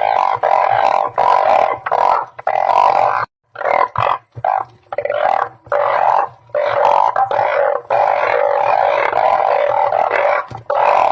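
Chorus of balloon frogs (Glyphoglossus molossus, อึ่งเพ้า) calling: many overlapping droning calls with a couple of brief lulls about three to four and a half seconds in.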